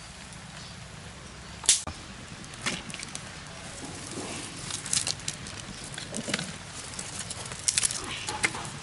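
Dry twigs and leaves burning in an earth pit fire, crackling with irregular sharp snaps and pops; the loudest snap comes near two seconds in, with clusters of pops around five and eight seconds.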